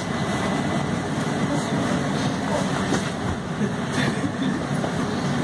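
Cabin noise inside a MAN Lion's City Hybrid city bus: a steady low hum under even running noise, with a faint thin high tone throughout.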